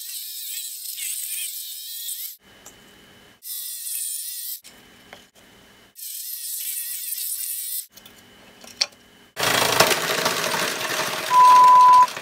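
Homemade treadle-powered scroll saw cutting plywood: the fine blade rasps through the wood in several short stretches with quieter gaps between them. A louder rattling stretch follows near the end, topped by a steady beep about a second long, which is the loudest sound.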